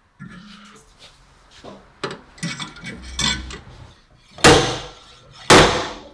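Metal tools clinking against sheet metal, then two loud, sharp, ringing metallic impacts about a second apart, from dent-pulling work on a Porsche GT3 RS side panel with welded-on pull pins.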